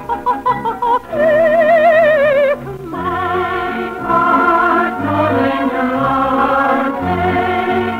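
Operetta music from an old radio recording, the sound thin and cut off at the top. Short, separate orchestral notes give way about a second in to a solo voice holding one high note with wide vibrato. From about three seconds in, chorus and orchestra hold long chords.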